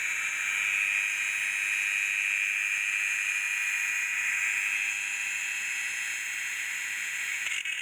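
A small electric tool running steadily with a whirring hiss, changing slightly near the end.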